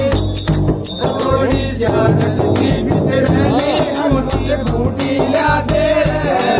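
Rajasthani Holi dhamal folk music: men singing together over the steady beat of a chang, a large hand-struck frame drum, with regular high jingling strokes keeping time.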